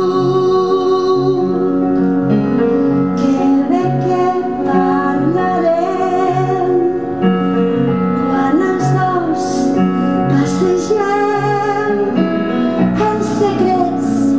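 Piano accompaniment with a repeating low figure, joined about two to three seconds in by a woman singing.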